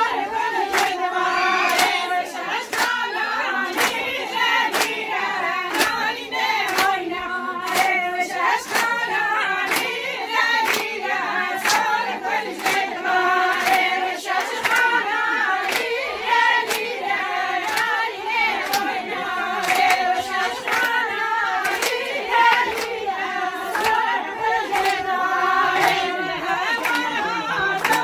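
A group of women singing a Kurdish wedding song together, with steady, rhythmic hand-clapping keeping the beat.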